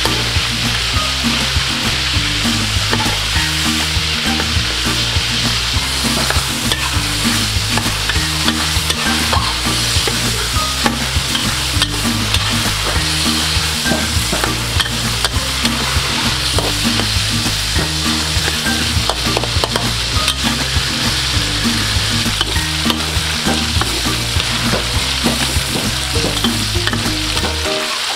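Pork belly pieces deep-frying in hot oil in a wok, giving a steady sizzle, with tongs stirring and clicking against the pan now and then.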